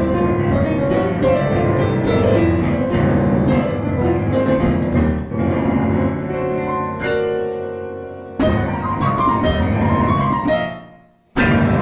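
Solo piano playing full, dense chords. About eight and a half seconds in a loud chord is struck and rings out, fading almost to silence, then another chord is struck near the end.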